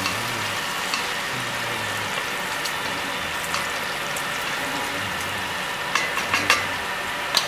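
Diced bacon sizzling as it renders in its own fat in a stainless steel pot, stirred with a wooden spoon. A few sharp clicks come near the end.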